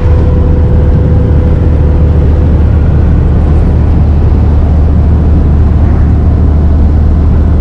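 Steady low rumble of engine and road noise inside the cab of a van driving at highway speed. A faint thin whine sits over it for the first few seconds.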